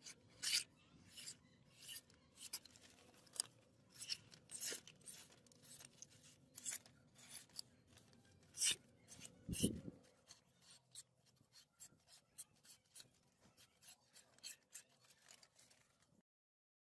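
Sharpened butcher's gut hook knife slicing through a sheet of paper: a series of short, crisp cutting strokes, one every half second to a second. A dull thump about ten seconds in.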